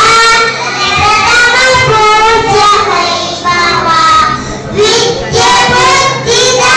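Young children chanting a sloka together in a sing-song melody, in phrases with short breaks between them.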